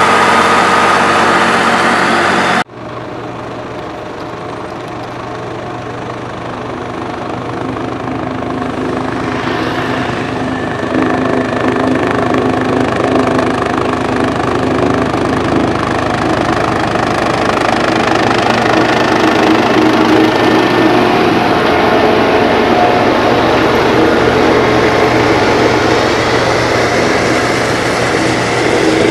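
Heavy road-construction machine engines running steadily. An abrupt cut about two and a half seconds in switches to another machine's engine, which grows gradually louder over the following seconds.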